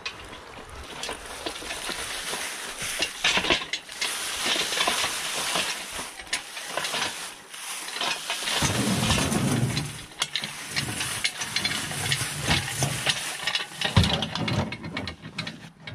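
Dry fallen leaves crunching and rustling under a steel engine hoist's legs and casters and the user's feet as the hoist is pushed across a leaf-covered yard, with a few sharp knocks along the way.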